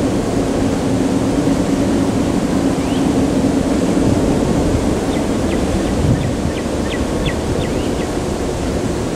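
Steady low outdoor rumble with a hum running through it, and a few short, faint high chirps about halfway through.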